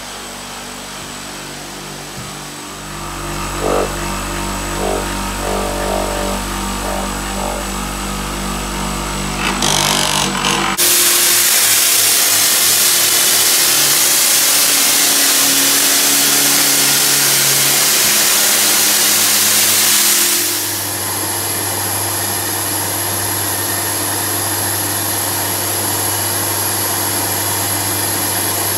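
Floor scrubbing machine running on vinyl tile, its motor humming steadily and picking up about two and a half seconds in, with irregular knocks as it works. After a sudden cut, a wet extraction vacuum with a floor wand gives a loud steady rush for about ten seconds. It then gives way to a lower steady machine hum with a high whine.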